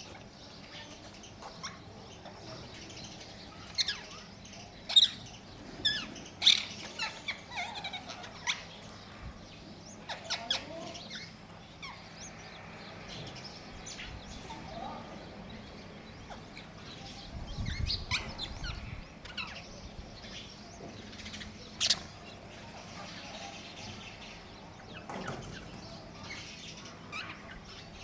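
Indian ringneck parakeet giving short, sharp chirps and calls in scattered bouts, busiest a few seconds in and again in the middle, with one loud call later on.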